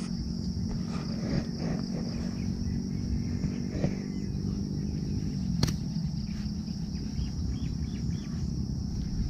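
Insects chirring in a steady high-pitched drone, over a low rumble of wind on the microphone. A single sharp click comes just past halfway.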